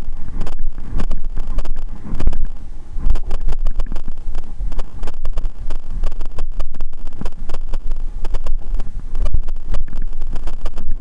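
Wind buffeting the microphone of a handlebar-mounted camera on a moving bicycle, a heavy low rumble broken by many sharp knocks and rattles from the bike and the camera mount.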